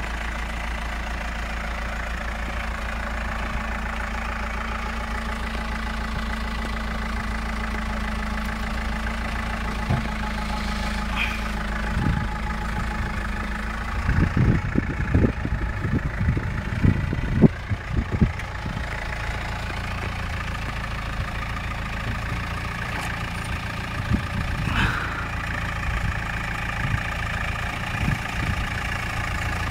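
Land Rover Defender 90 engine running steadily at low revs as the truck crawls through a deep rut. A cluster of irregular thumps comes about halfway through, with a few single knocks before and after.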